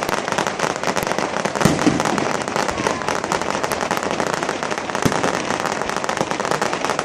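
Fireworks crackling densely and without a break, a rapid patter of small pops, with a few deeper booms among them.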